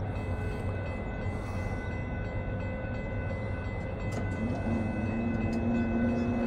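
Amtrak train running: a steady low rumble that grows slightly louder, with a tone that slides up and then holds about two-thirds of the way through.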